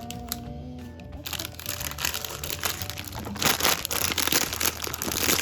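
Plastic bag of LEGO pieces being torn open and crinkled, with crackling and small clicks of the bricks inside, starting about a second in and loudest near the middle.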